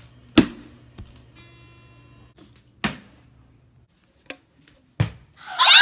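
Water bottles being flipped and landing with sharp knocks: a loud one about half a second in, then four softer ones spaced a second or more apart.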